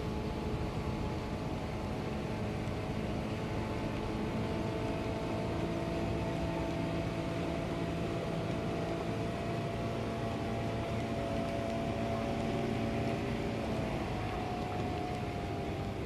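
Boat engine running steadily off-screen, its pitch shifting slightly about four seconds in and again near the end.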